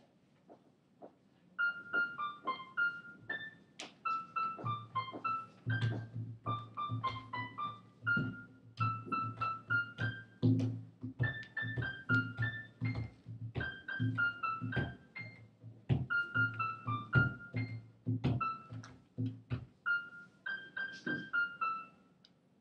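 Electronic keyboard playing a simple melody of quick, short single notes in repeated phrases. A low bass line sounds under it from about five seconds in until about twenty seconds, then the melody plays alone to a stop near the end.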